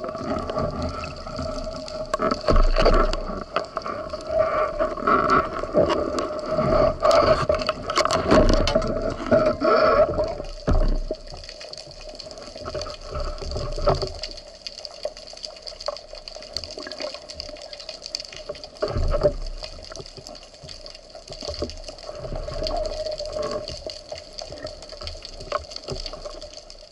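Water sloshing and gurgling with many small clicks, busier and louder in the first half, over a steady hum.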